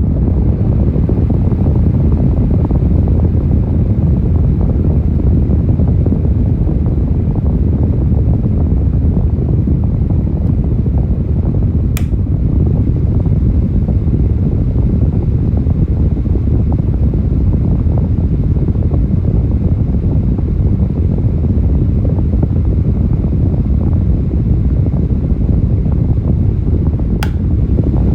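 Electric fan blowing straight into the microphone: a steady, low, rumbling rush of air buffeting the mic. Two brief clicks come through, one about midway and one near the end.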